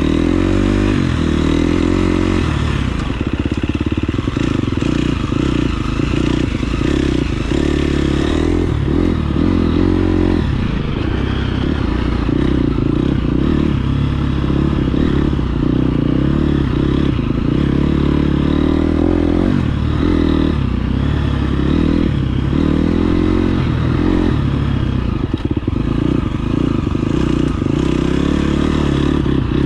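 KTM 350 SX-F's single-cylinder four-stroke engine running loud as the motocross bike is ridden, its revs rising and falling again and again with throttle and gear changes.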